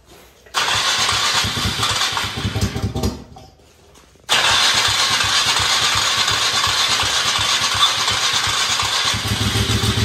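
An engine being started. A first attempt runs for about two and a half seconds and dies away. A second start a little past four seconds catches and keeps running steadily, settling toward an idle near the end.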